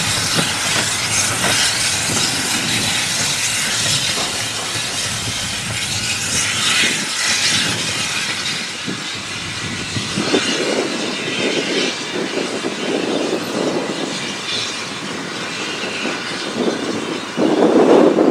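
A steam train running on the track, a steady rush with a hiss of steam. About ten seconds in this gives way to a steam tank locomotive's slow exhaust chuffs, roughly one a second, loudest near the end as it pulls away.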